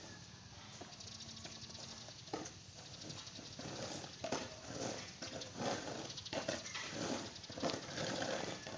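Long-handled rake drawn through unhusked rice grain spread out to dry, making rustling, scraping strokes about twice a second that grow louder from about four seconds in.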